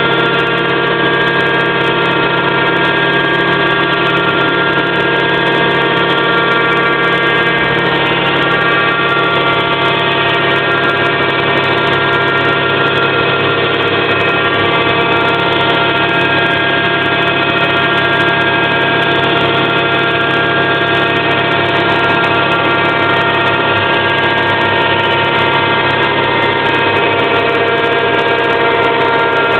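Homemade CNC milling machine running steadily: a continuous mechanical hum with many fixed tones that hold level and pitch throughout.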